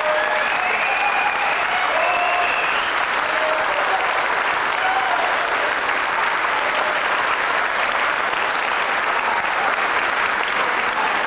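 Audience applauding steadily, with a few voices calling out over the clapping in the first few seconds.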